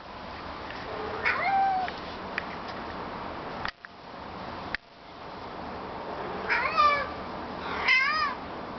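Domestic cat meowing toward other cats: one short call about a second in, then two longer wavering, warbling meows near the end. Two brief clicks in between.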